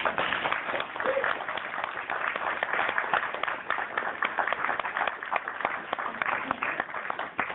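Audience applauding: many hands clapping in a dense patter that starts suddenly.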